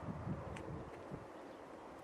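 Strong wind buffeting the microphone: irregular low rumbling gusts, with a faint click about half a second in.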